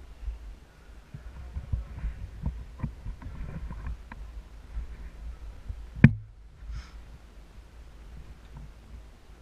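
Irregular low thumps and faint rustling of movement close to the microphone, with one sharp, loud snap about six seconds in.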